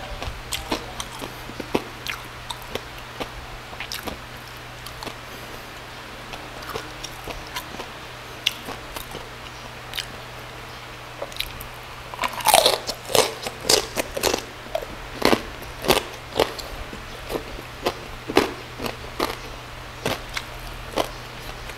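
Close-up chewing and biting of crispy roast pork belly (lechon liempo) crackling eaten with rice, with many sharp crunches. A run of louder crunches starts a little past halfway.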